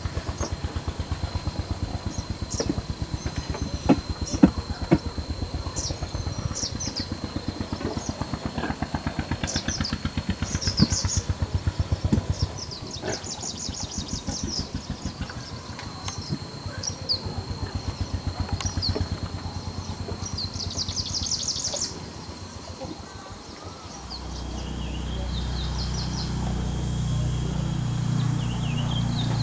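A small engine running with an even, rapid pulse, with birds chirping over it. About 24 s in the sound cuts to a steadier low hum with a high steady tone.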